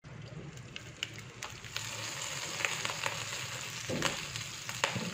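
Beef chops sizzling in oil in a frying pan: a steady hiss with frequent small crackling pops, and a couple of duller knocks about four seconds in.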